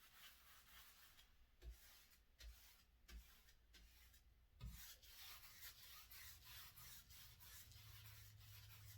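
Faint strokes of a paintbrush rubbing paint onto a wall, with a few soft knocks in the first half.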